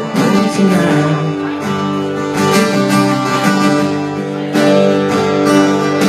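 Acoustic guitar strummed in chords, played live as an instrumental passage without singing.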